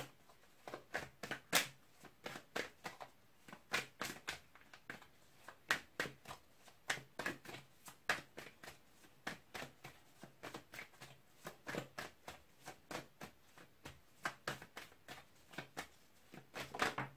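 A tarot deck being shuffled by hand: a continuous run of short card slaps and flicks, about two or three a second.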